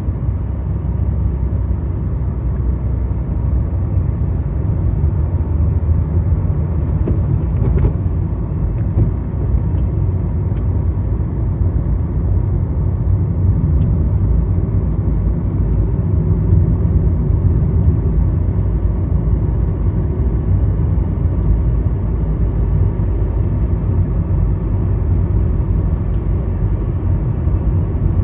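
Car driving along a hill road: steady low rumble of engine and tyre noise, with a few faint ticks.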